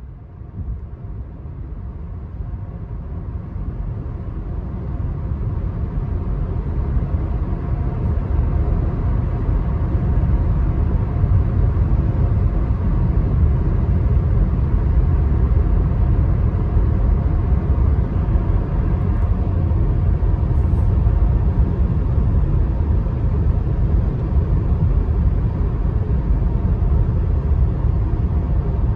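Car road noise heard from inside the cabin while driving on a highway: a steady low rumble of tyres and engine that grows louder over the first ten seconds or so, then holds steady.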